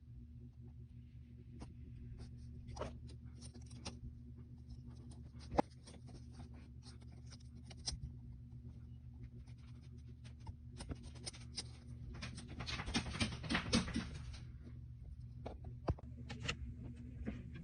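Small tools working on a smartphone: scattered sharp clicks and ticks, with a busier stretch of scratching and clicking about two-thirds of the way through, over a steady low hum.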